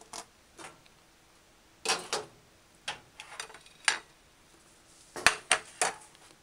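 Kitchen knife and utensils knocking and clinking on a plastic cutting board: about eight separate knocks with pauses between them, the sharpest ones coming a little before four seconds in and in a quick cluster of three a little after five seconds in.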